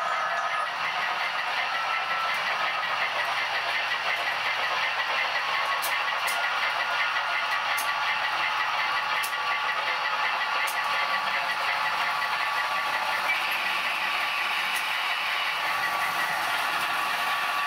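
H0-scale model trains running on the layout: a steady rattling of wheels on the track as the model Big Boy steam locomotive pulls its freight train, with a quick regular beat running through it and a few sharp clicks.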